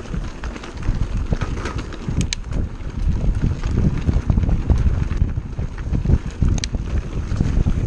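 Wind buffeting a bike-mounted camera's microphone over the rumble of mountain bike tyres rolling on a rocky dirt track, with a few sharp clicks and rattles.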